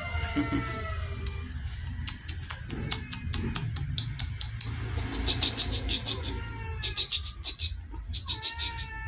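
Dog whining in drawn-out, high-pitched calls: one at the start, one a bit past the middle and one near the end. Between the calls come runs of rapid, sharp clicking.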